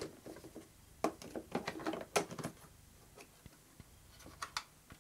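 Plastic clicks and knocks from the AEG PowerForce vacuum cleaner's hinged lid and filter housing as they are handled and pressed. The lid will not shut properly. There is a quick run of clicks between about one and two and a half seconds in, then a few fainter ones near the end.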